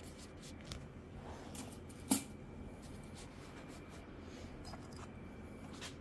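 Faint handling noises, light rustles and ticks from the camera being moved by hand, with one sharp click about two seconds in.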